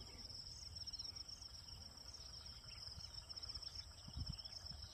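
Crickets chirring in a steady, pulsing high-pitched trill, over a faint low rumble.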